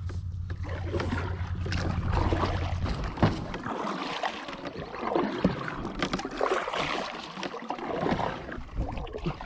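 Kayak paddle strokes: a double-bladed paddle dipping and pulling through lake water on alternate sides, with splashing and dripping in uneven swells about once a second. A low steady hum runs under the first three seconds, then stops.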